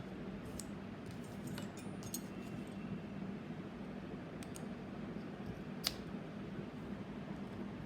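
Scattered light clicks and ticks, the sharpest about six seconds in, over a steady low hum.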